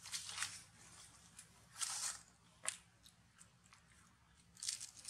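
Long-tailed macaque chewing hard food, crunching in several short bursts.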